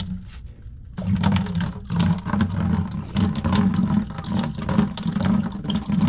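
Water rushing out of an opened drain on the fan coil's chilled-water pipework, starting about a second in and running on unevenly: the isolated line being drained of its remaining water.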